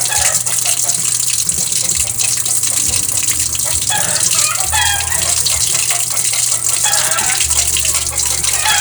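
Water running into the tub of a Sharp top-load automatic washing machine as it fills to the set water level before washing: a steady rushing hiss.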